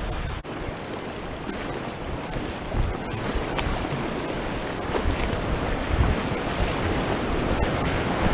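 Rushing whitewater of a river rapid heard from a kayak running through it, a steady dense rush with wind buffeting the microphone and a few faint paddle splashes. The sound breaks off briefly about half a second in and then resumes.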